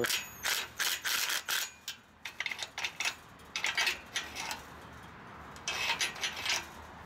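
Ryobi 18-volt impact driver given several short bursts to snug the bolt on a steel chain link gate fork latch. From about two seconds in, the metal fork latch clinks and rattles as it is swung up and down by hand, with a second cluster of clinks near six seconds.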